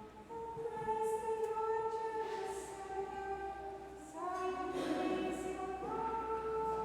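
A choir of nuns' voices singing a slow chant in unison, without accompaniment, with long held notes that step up in pitch about four seconds in and again near the end: the responsorial psalm sung between the readings.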